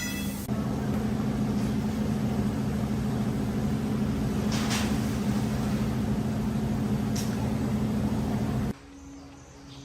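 A vehicle engine running steadily, with a couple of brief clatters over it, cut off abruptly near the end.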